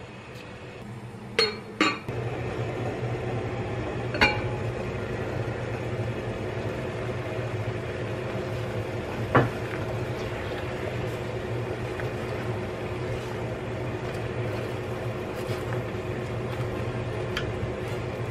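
A metal utensil clinks twice against a ceramic pot. Then a pot of salted water boils steadily on a gas burner with a low hum underneath, while metal tongs push spinach into the water and clink against the pot now and then.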